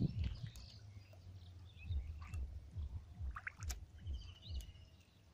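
Dull squelching splashes in shallow muddy water, about two a second, like wading steps through mud, with a few short bird chirps in the middle.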